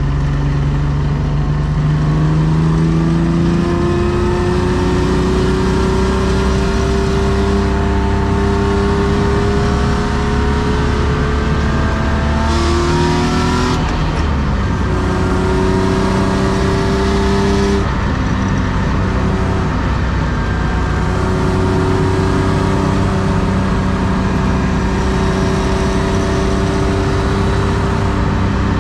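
The M50B25 2.5-litre inline-six of a 1993 BMW E36 325i, running through tubular headers and an aftermarket exhaust, heard from inside the cabin while driving. The engine pulls up in pitch over the first few seconds, gives a brief steep rise and fall about halfway through, then runs at a steady cruise.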